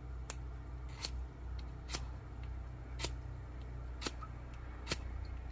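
A permanent 'forever' match rod struck against the striker strip on the side of its keychain case: six short, sharp scratches about a second apart, each failing to catch a flame.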